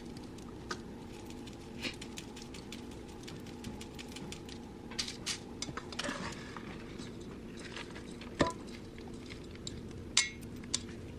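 Kitchen utensils and dishes clinking and tapping as cookie dough is handled, with scattered light taps and two sharper, ringing clinks near the end, over a steady low hum.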